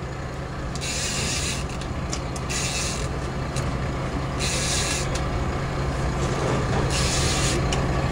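A fishing reel rasping in four short bursts while a hooked mackerel is being fought, over a steady low hum.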